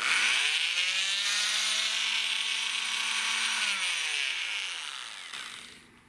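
Hyper Tough oscillating multi-tool switched on. Its motor comes up to speed at once, runs steadily for about three and a half seconds, then winds down with its pitch falling away as it is switched off. It is running again after a cracked solder joint on its circuit board was resoldered.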